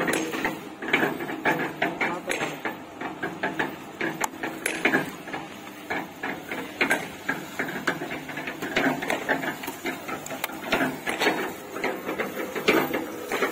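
Half-bag mini tilting-drum concrete mixer running on its 2 HP single-phase electric motor, the drum turning with a steady hum and a constant, irregular clatter of knocks and clicks.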